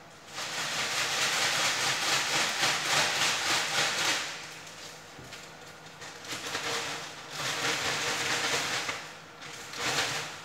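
A rushing hiss in bursts: one lasting about four seconds, then two shorter ones a couple of seconds later, and a brief one near the end.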